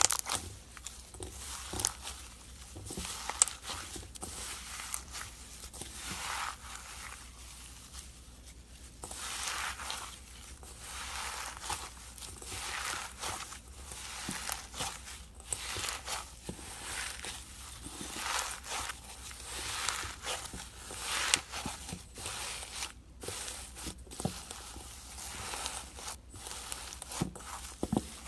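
Crunchy slime being squeezed and kneaded into a heap of white granules, crackling and crunching in repeated irregular squeezes with a few sharper snaps.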